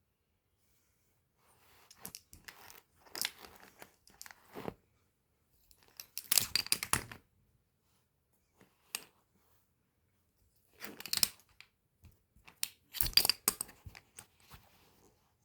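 Irregular bursts of crinkling, tearing and clicking handling noise at close range, as of materials being worked by hand. The loudest bursts come about six seconds in and again about thirteen seconds in.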